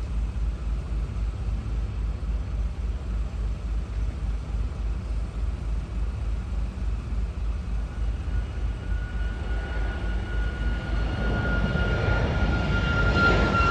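Departing jet airliner: a low pulsing rumble, with a high engine whine that comes in about halfway, grows louder and falls slightly in pitch as the aircraft approaches.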